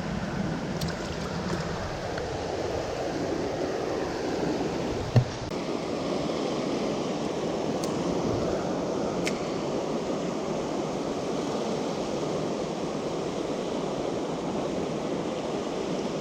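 Steady rush of a large, fast-flowing river, with one short knock about five seconds in.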